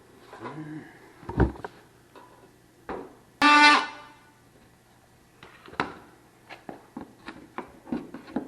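Scattered knocks and clicks of hand work, with one loud, short horn-like tone of steady pitch about three and a half seconds in.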